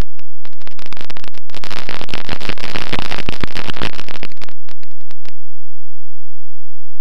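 Harsh crackling wind noise on the onboard camera microphone of a Bixler foam model plane in low flight. It starts within the first second, with a few separate crackles near the end, and cuts off about five seconds in.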